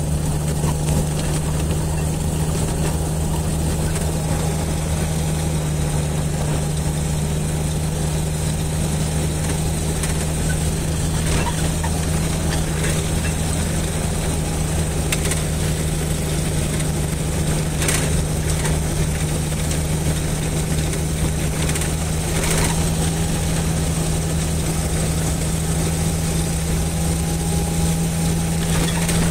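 Jeep engine running steadily at idle, a constant low hum with a few faint clicks.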